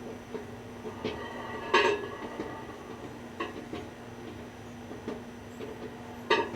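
1000-watt Hamilton Beach microwave oven running with a steady hum while a light bulb heats inside. It is broken by five sharp clinks or snaps with a short ring, the loudest about two seconds in, from the glowing bulb inside.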